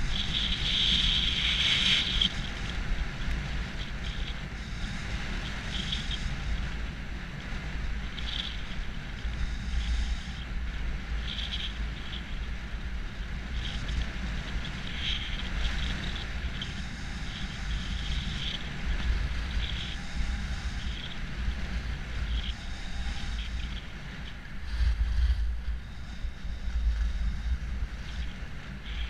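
Wind noise on a GoPro's microphone while skiing downhill, with skis scraping on packed snow in short bursts every second or two. The scraping is loudest in the first two seconds.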